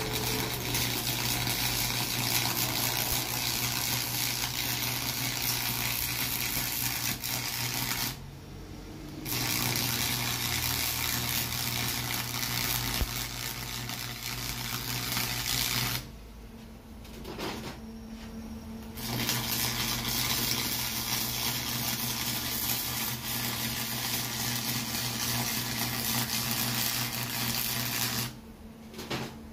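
Stick (arc) welding: the electrode's arc running in a steady hiss with a low hum under it as a bead is laid around the galvanized steel end of an exhaust resonator. The arc stops briefly about eight seconds in, for a few seconds at about sixteen seconds, and again near the end.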